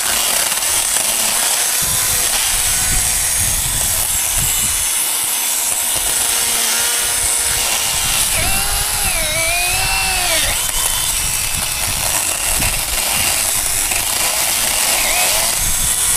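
Gasoline chainsaw running loud and steady as it cuts brush, its engine pitch dipping and rising briefly about halfway through.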